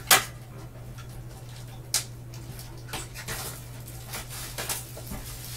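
Cardboard trading-card box handled by gloved hands: a sharp tap right at the start and another about two seconds in, with lighter clicks and rustling later on. A steady low hum runs underneath.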